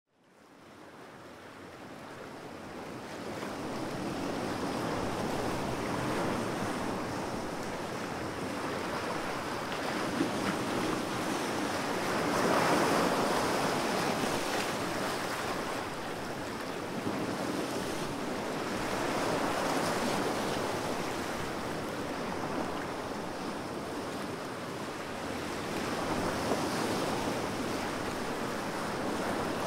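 Sea waves washing onto a shore, fading in from silence at the start, then swelling and ebbing about every seven seconds.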